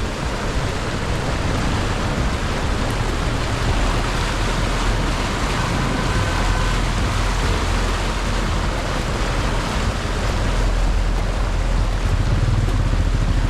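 Steady rush of floodwater and rain, mixed with the low rumble of vehicles on the flooded road.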